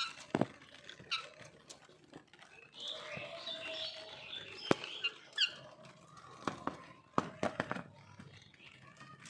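Pet parrot giving short chirps and squawks, one falling call about five seconds in, among scattered sharp clicks and knocks.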